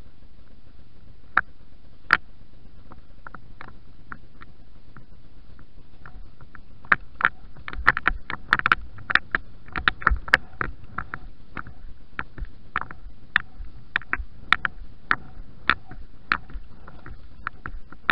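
A horse being ridden briskly on a sand arena, heard from a helmet-mounted camera: a steady rushing noise with irregular sharp clicks and knocks, thickest in the middle.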